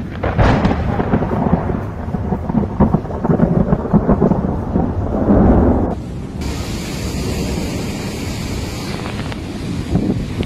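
A thunderclap breaking just after a lightning flash and rumbling heavily for several seconds. It gives way abruptly to a steady hiss of rain.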